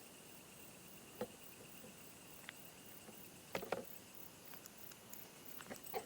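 Crickets chirping steadily in the night background, with a few soft clicks and knocks, the loudest a quick pair about three and a half seconds in.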